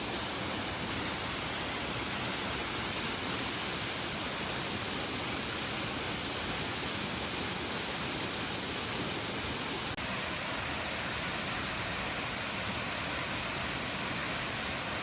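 Waterfall rushing, a steady even roar of falling water; its tone shifts abruptly about ten seconds in.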